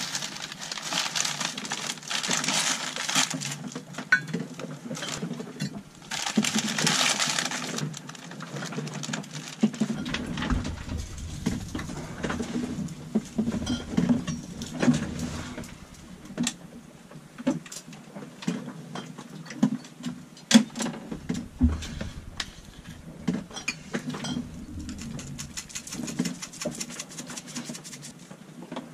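Plastic bag crinkling as a bag of raw chicken is opened, in two stretches over the first several seconds. Then many scattered clicks and knocks of handling in a boat's galley, with a steady low hum underneath and two spells of low rumble.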